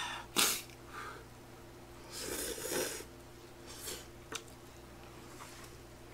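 A person slurping hot tteokbokki noodles: a short sharp slurp about half a second in and a longer one around two seconds in, then a few small mouth clicks while chewing.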